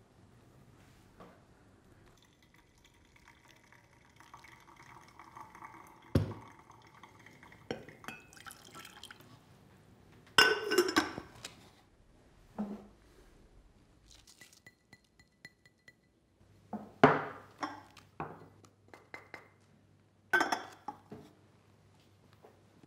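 Ceramic and glass clinks and knocks from a pour-over coffee set: a white ceramic dripper, glass server and kettle handled and set down on the table and scale. There are several separate knocks with quiet between them, the loudest about ten seconds in with a brief ring, and a short run of faint beeps near the middle, over faint music.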